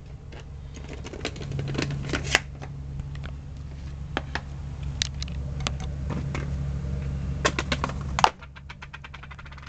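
Hard plastic clicking and clattering as a clear plastic capsule case holding a ball-shaped twisty puzzle is handled and opened, over a low rumble. A sharp click comes about eight seconds in, after which the rumble stops and it goes quieter.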